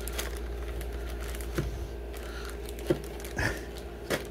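Light knocks and rustles of plastic-packaged toys being picked up and set down on a desk, a few separate clicks about a second apart over a low steady hum.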